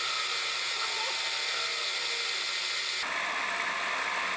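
Mini-lathe running with a steel cylinder block spinning in the chuck as a tool bit faces its end: a steady motor whine under a hiss of cutting. The sound changes abruptly about three seconds in.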